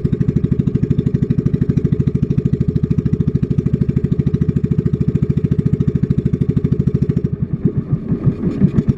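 Motorized banca's freshly repaired engine running steadily under way, a fast, even putter. Near the end the beat turns uneven.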